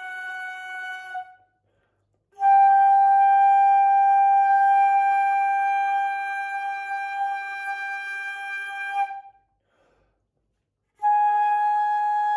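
Silver concert flute playing long held notes. One note ends about a second in. After a short pause a long note starts loud and fades slowly until it stops, and after another pause a new held note begins near the end.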